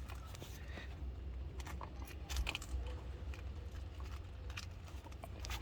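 A door-lock damper being pressed onto a car door's lock striker: faint crunchy clicks and scrapes, a little stronger about two and a half seconds in, over a low rumble.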